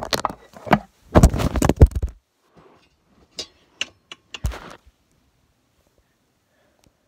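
Loud rough handling noise and thumps as a phone recording is grabbed and shaken about. Then come a few scattered knocks and clicks, and near silence from about five seconds in.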